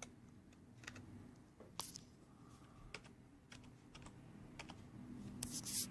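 Faint, irregular key presses on a Logitech G105 membrane keyboard: scattered single clicks with uneven gaps between them, and a brief louder noise near the end.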